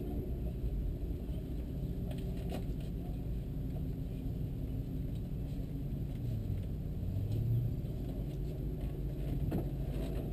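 Car engine idling steadily, a low rumble heard from inside the cockpit, with a few faint clicks.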